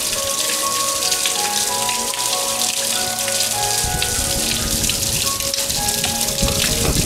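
Background music, a melody of held notes, plays over a steady patter and hiss of water like rain. Low rumbles come in about four seconds in and again near the end.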